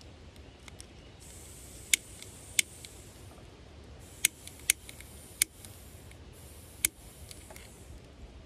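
Small handheld gas torch hissing in two spells, from about a second in and again from about four seconds in, as it heats a heat-shrink wire fitting. Six sharp clicks are scattered through.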